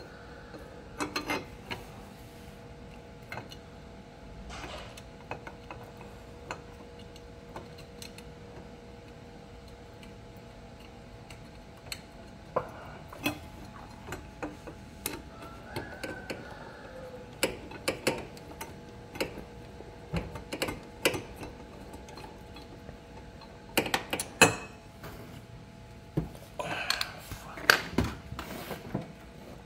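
Scattered clicks and knocks of hand tools and metal parts being handled during work on a Honda PCX scooter's exhaust, growing busier in the second half with the loudest knocks near the end. A faint steady hum runs underneath and stops near the end.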